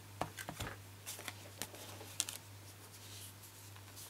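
Faint handling of cardstock: a scattered few light taps and paper rustles in the first couple of seconds, over a low steady hum.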